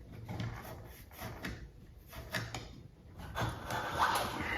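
Irregular rubbing and scraping as an LED retrofit trim is pushed and worked up into a recessed ceiling can, its rubber gasket squeezing against the opening.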